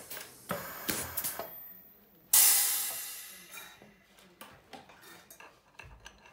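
A pneumatic press crimping press sleeves onto brass fittings: a few small clicks and knocks, then a sudden loud hiss of compressed air about two seconds in that fades over about a second and a half, followed by light metallic clicks as the pressed fitting is handled.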